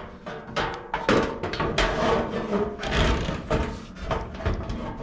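Square ceiling supply-air diffuser being worked up into a drop-ceiling grid opening: repeated knocks, clicks and scraping as it rubs and bumps against the metal grid and ceiling tiles.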